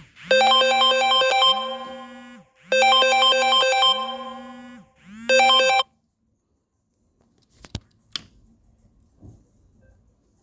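Smartphone anti-theft alarm app sounding an electronic siren: a low tone that swoops up and holds, repeating about every second, under fast high-pitched beeps. It cuts off suddenly about six seconds in, followed by two short clicks.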